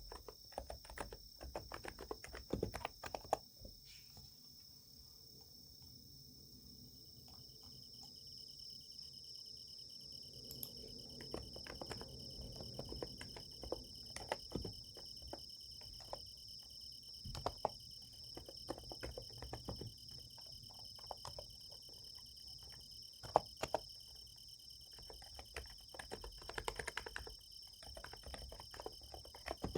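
Typing on a Niz Plum x108 electrostatic capacitive keyboard: irregular, soft key clicks that thin out briefly about four seconds in. Under the typing is a steady, high chirring of night insects.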